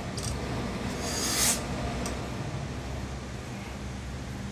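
Handling noise of a suit jacket's cloth and lining being lifted and turned on a table, over a steady low workshop hum. There is one short hissing rustle about a second in, and a sharp click at the end.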